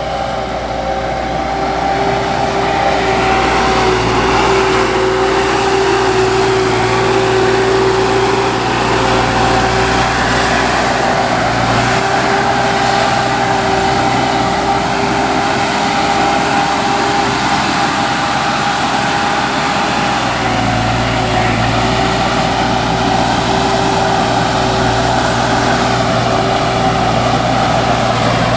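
Heavy diesel construction machinery running steadily, with a constant whine over the engine noise.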